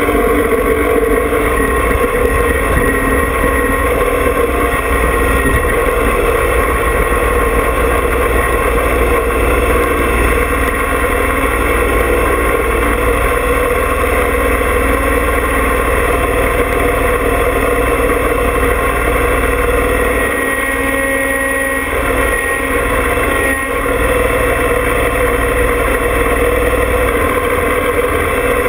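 John Deere 2305 compact tractor's three-cylinder diesel engine running steadily, close to the camera.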